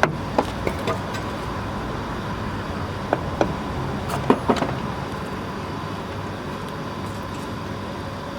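Light knocks, about six in the first half, as the new lower control arm is tapped into place with a piece of wood, over a steady background hiss with a faint hum.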